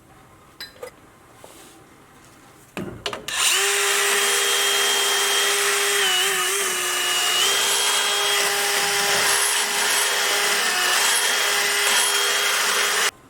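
High-speed power grinding tool starts about three seconds in and runs with a steady high whine while deburring the inside of a leaf spring eye. Its pitch sags briefly about halfway through as it bites into the metal, and it shuts off suddenly near the end.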